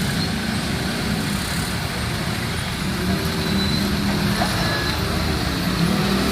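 Heavy road vehicle engines running with a steady low drone.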